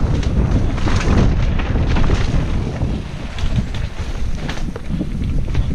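Wind rushing over the microphone of a camera riding along on a mountain bike descending a downhill trail, with frequent short clicks and knocks from the bike over rough ground.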